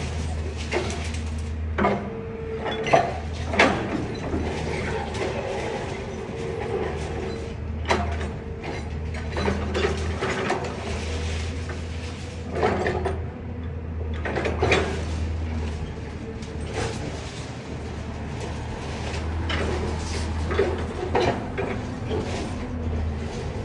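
Excavator working at demolition: its diesel engine runs steadily with a constant hydraulic whine, while irregular clanks and scrapes of the bucket and debris break in every second or two.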